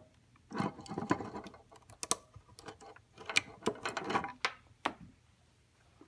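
Ethernet patch cable being unplugged and handled: irregular clicks of plastic RJ45 connectors and latches with rustling of the cable, stopping about five seconds in.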